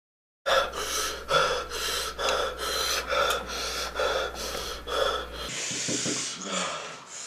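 Rapid, rhythmic gasping breaths, several a second, over a low steady hum: a person panting against the burn of spicy noodles. About five seconds in it gives way to softer hissing breaths.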